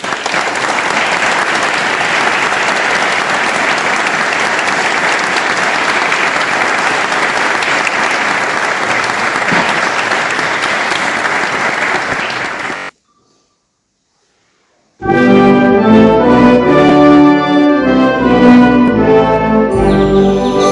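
Audience applauding steadily for about thirteen seconds, then cutting off suddenly. After a brief silence, a concert wind band with brass starts playing.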